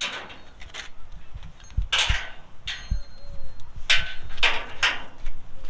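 Car-hauler tie-down straps being fitted: a run of short scraping rasps with a few dull knocks.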